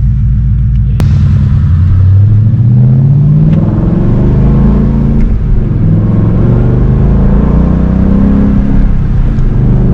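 2017 Ford Mustang GT's 5.0-litre V8 running through an MBRP Race catback exhaust under acceleration, its pitch rising, dropping back and rising again several times.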